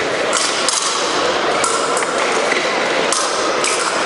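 Sharp metallic clinks of épée blades meeting, about half a dozen scattered over four seconds, over the steady din of a large fencing hall with voices.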